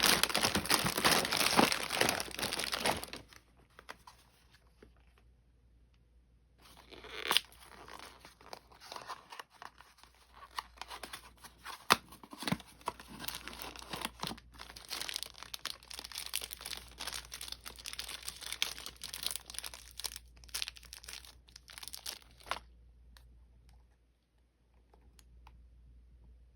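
Toy packaging being torn open and crinkled by hand: loud tearing for the first few seconds, a short pause, then a long stretch of rustling and crinkling with sharp clicks that stops a few seconds before the end.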